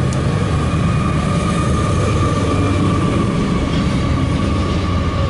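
CSX intermodal and autorack freight train passing close by: a loud, steady rumble of wheels on rail, with a thin, steady high-pitched whine over it.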